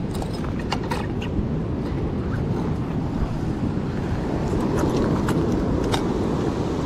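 Wind buffeting the microphone over the steady wash of ocean surf, with a few sharp clicks and taps, a cluster in the first second and more around five seconds in.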